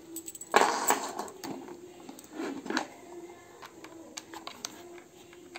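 Handling noise: a brief rustle about half a second in and another near the middle, then a run of small sharp clicks as a metal screw-on probe connector is pushed into and turned on the port of a handheld internal-resistance tester.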